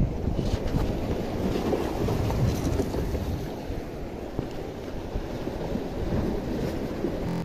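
Wind blowing on the microphone over choppy sea waves washing against rocks: a steady low noise with no distinct events.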